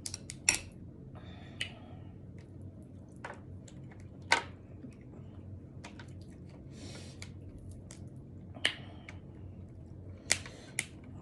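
Close-up eating sounds from a seafood boil of shrimp and snow crab legs: sharp, separate clicks and cracks a second or more apart, with short stretches of soft rustling and squishing between them.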